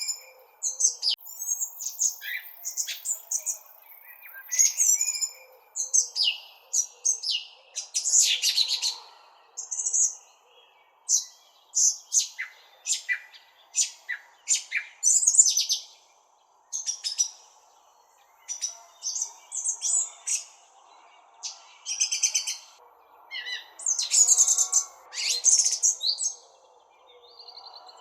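Several small songbirds chirping and trilling, many short high calls overlapping one another, over a faint steady background hiss.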